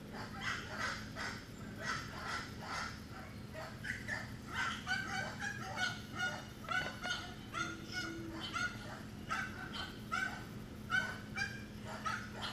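Dogs barking over and over in short, high, pitched barks, sparse at first and then about two a second from about four seconds in.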